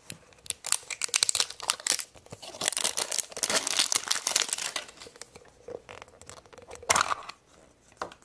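Crinkling and tearing of a surprise egg's wrapper being unwrapped by hand, dense for the first few seconds, then sparser, with another short burst of crinkling about seven seconds in.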